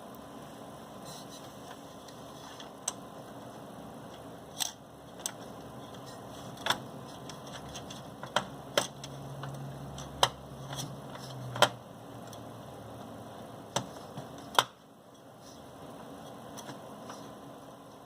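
Sharp clicks and knocks of computer hardware being handled while a CPU cooler is fitted, about a dozen spread over the stretch, with a brief low hum in the middle.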